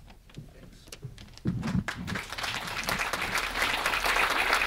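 Audience applauding, starting a little under halfway in and growing louder.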